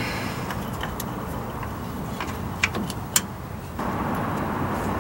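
Light metallic clicks and clinks of drum-brake parts being handled, the two sharpest about half a second apart a little past the middle, over a steady background rumble.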